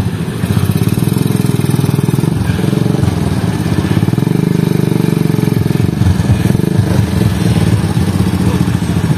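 A motor vehicle's engine running loud and steady close by, a low pulsing rumble that holds an even pace throughout.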